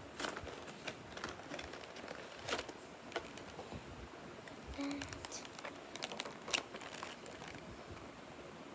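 Irregular light taps, clicks and crinkles of a boxed Pokémon card battle deck and its plastic wrapping being handled.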